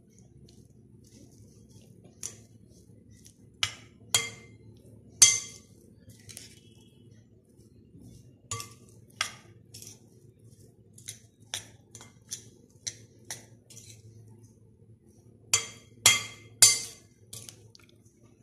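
Metal spoon clinking and scraping against a glass mixing bowl while stirring crumbled idiyappam, in irregular clinks with the loudest clusters about four seconds in and near the end.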